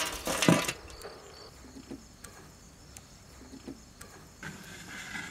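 Burning charcoal tipped from a metal pan onto the metal lid of a large biryani pot for dum cooking: a brief clatter ending in a knock in the first second. Crickets then chirp steadily, with a few small clicks.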